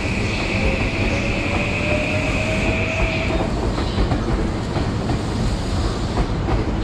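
JR Yokohama Line E233-series electric train running on the rails, heard from inside the train: a steady rumble with rail clatter. For about the first three seconds a high squeal from the wheels or brakes sounds over it, together with a faint rising whine.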